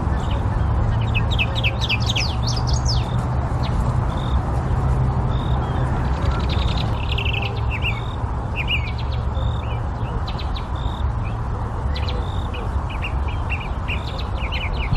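Small birds chirping and twittering in many quick, high, falling notes, with one short high note repeating every second or so, over a steady low rumble.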